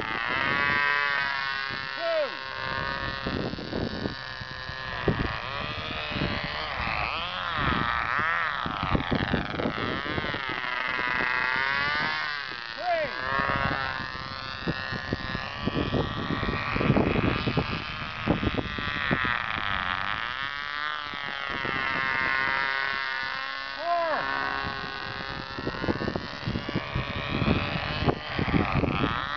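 Radio-controlled scale model airplane in flight, its engine droning with a pitch that swings up and down again and again as the plane passes back and forth.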